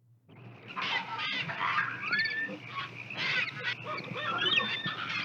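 Dense jungle chorus of monkeys chattering and birds calling, many short squawks and chirps overlapping, fading in over the first second.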